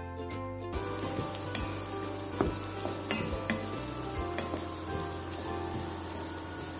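Chopped vegetables sizzling in hot oil in a nonstick wok as they are stir-fried, with a spatula scraping and knocking against the pan now and then. Background music stops under a second in.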